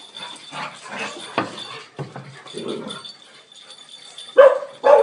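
Several dogs playing rough together, with scattered soft sounds, then one loud bark near the end.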